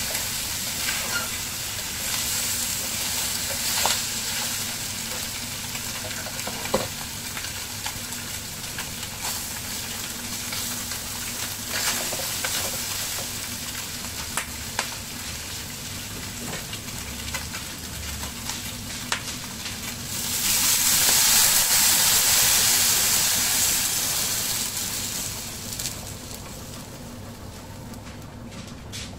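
Carp tail pieces frying in hot oil in a wok: a steady sizzle with scattered sharp spatter pops. About two-thirds of the way through the sizzle swells louder and brighter for a few seconds, then dies back down near the end.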